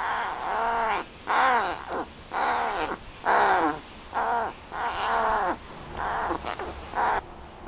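American crow cawing repeatedly: about eight loud, harsh caws in quick succession, each arching up and then down in pitch, some drawn out and some short.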